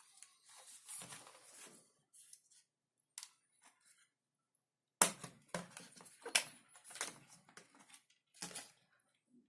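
Handling noise from a tool and its packaging being unboxed: a soft rustle in the first two seconds, then a run of sharp clicks and knocks from about five seconds in.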